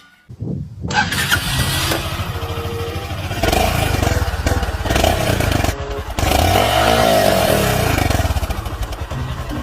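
Motorcycle engine starting up just after the beginning and running loudly, with rapid firing pulses and its pitch rising and falling in the middle.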